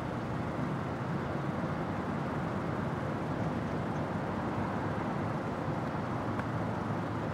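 Steady outdoor background rumble, like distant road traffic, an even noise with no distinct events.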